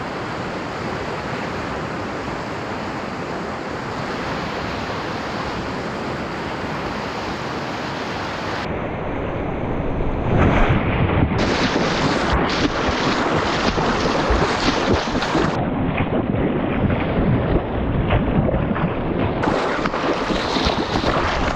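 Whitewater rapids rushing around a canoe, heard close from a bow-mounted camera. A steady roar at first; from about ten seconds in it turns louder and choppier as the canoe drops into the waves, with water breaking and splashing over the camera near the end.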